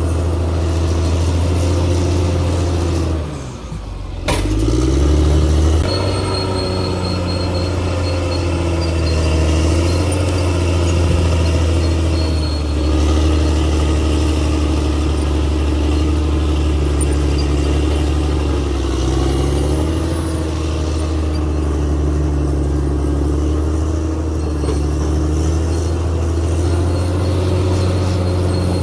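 Caterpillar D6R XL bulldozer's diesel engine running steadily under load. About three seconds in it drops off briefly, then climbs back up in pitch, and it rises again near the twenty-second mark.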